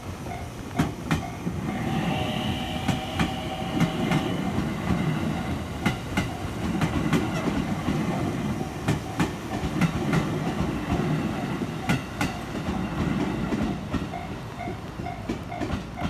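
A Japanese level-crossing bell dings steadily, then is drowned out as an electric train passes close by: a rumble with paired clacks as the wheels run over rail joints, and a held high tone about two seconds in. Near the end the train is gone and the crossing bell comes through again.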